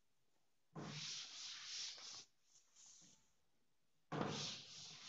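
Cloth wiping a chalkboard: two stretches of back-and-forth rubbing, each about a second and a half long, with a short fainter wipe between them.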